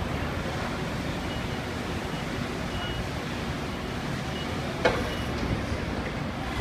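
Forklift running steadily while its hydraulics swing the Cascade tri-lateral carriage and forks through their turn, with a single sharp knock about five seconds in.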